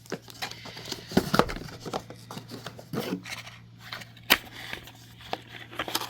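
Handling and opening the cardboard packaging of a DJI camera box: scattered clicks, taps and rustles of the box and its inner parts, over a steady low hum.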